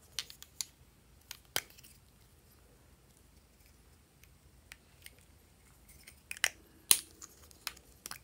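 Sharp plastic clicks and snaps from small lipstick tubes and their caps being handled and pulled open, a few in the first two seconds and a louder cluster about six to seven seconds in.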